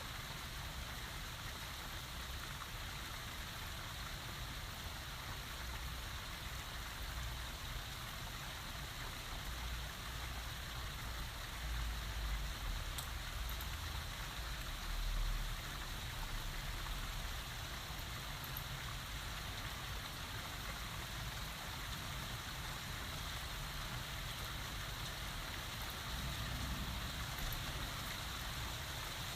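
Heavy rain falling steadily, a dense even hiss of drops on surfaces. A low rumble swells up about halfway through and again near the end.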